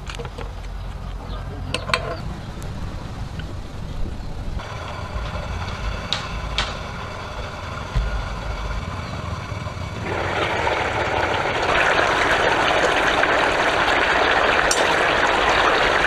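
A few spoon clinks against a steel bowl, then a lidded steel stockpot boiling on the fire with a steady hiss of steam that grows much louder about ten seconds in.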